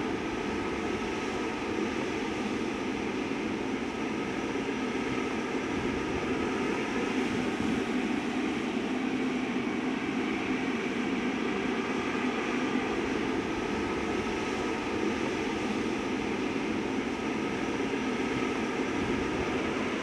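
Boeing 777-300ER's GE90 turbofan engines running at taxi idle, a steady jet noise with faint steady whining tones above it.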